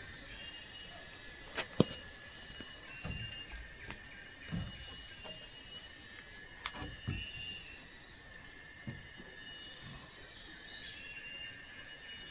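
Scattered knocks and thuds of work on wooden kitchen posts, several seconds apart, over a steady high drone and repeated chirping of forest insects and birds.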